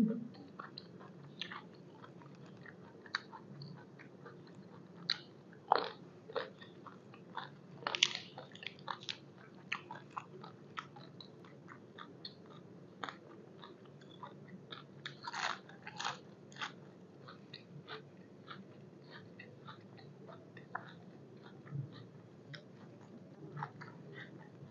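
Close-miked chewing of crisp raw vegetables, a small Thai eggplant and fresh lettuce leaves, in irregular crunchy bites and mouth clicks, with the loudest crunches about six and eight seconds in and again near the middle.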